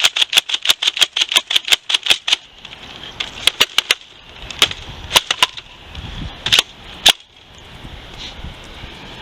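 Nerf Modulus Tri-Strike spring blaster being slam-fired, a quick string of sharp snapping shots about six a second that stops about two and a half seconds in. It is followed by a few slower separate shots, the last near seven seconds the loudest.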